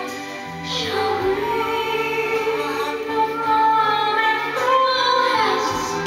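Recorded song: a woman's operatic voice holding long notes with vibrato over instrumental backing.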